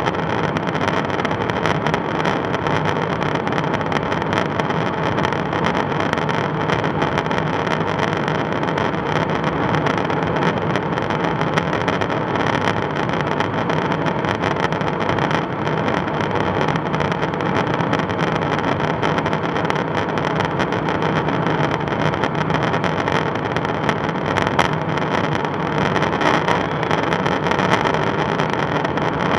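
Steady in-flight drone of airflow and jet engines inside a KC-135 Stratotanker's boom operator pod, unbroken, with a few steady hums running through it.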